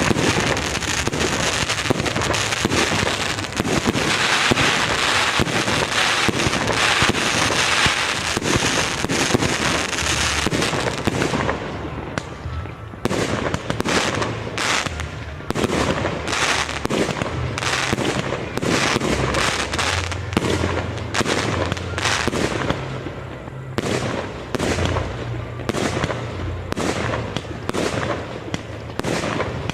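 Aerial fireworks display. For about the first ten seconds there is a dense, continuous crackling of many small reports, then a rapid string of separate sharp bangs from bursting shells, several a second.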